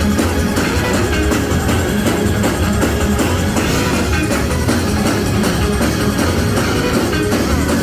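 Live church band playing a fast, loud praise break, with a drum kit keeping a quick steady beat under guitar and keys in the church-of-prayer style.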